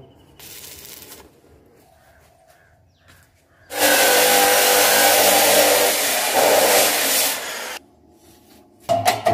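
Stick arc welding on mild-steel stair stringers: the arc crackles and hisses steadily for about four seconds, starting and cutting off abruptly. A few sharp metal clinks follow near the end.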